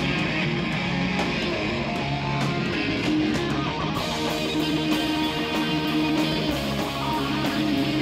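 Live rock band playing: electric guitars, bass guitar and drums, with regular drum hits. The sound brightens about halfway through.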